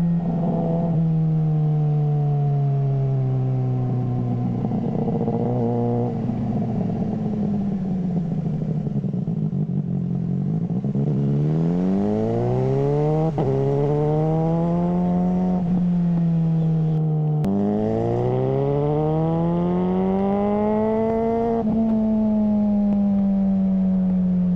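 Suzuki GSR600 inline-four running through a GPR Ghost aftermarket exhaust while the bike is ridden. Its revs fall off, then climb twice in strong pulls, each broken by a sudden drop in pitch at an upshift, before easing off again.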